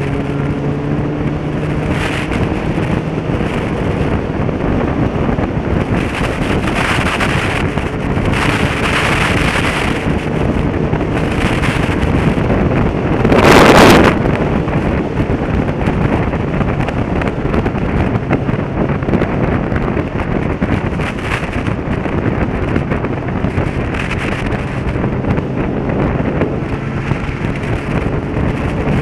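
Motorcycle riding at speed: a steady rush of wind over the microphone with the engine's note underneath, and one loud whoosh about halfway through.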